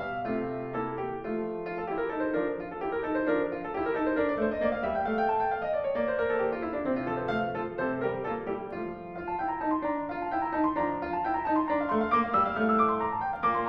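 Classical piano music, with quick successions of notes.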